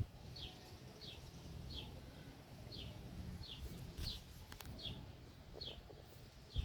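A bird calling with short, high chirps that fall in pitch, repeated evenly about three times every two seconds, over a faint low rumble. Two sharp clicks come about two-thirds of the way through.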